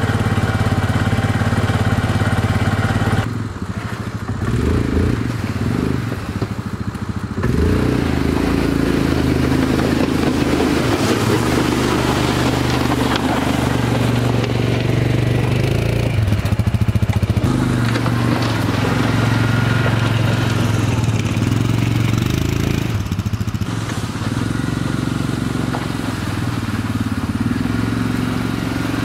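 Honda FourTrax ATV engine running, steady at idle and rising and falling a little in pitch as the four-wheeler is driven with a snow plow blade mounted; the engine sound drops away for a few seconds shortly after the start.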